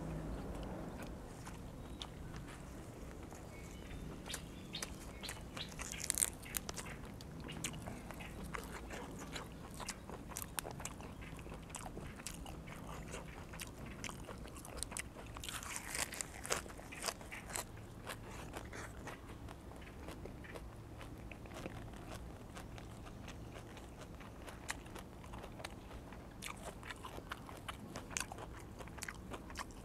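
A person chewing and crunching mouthfuls of raw beef and fresh leafy vegetables close to a clip-on microphone, with many small wet mouth clicks and two louder crunches about six and sixteen seconds in.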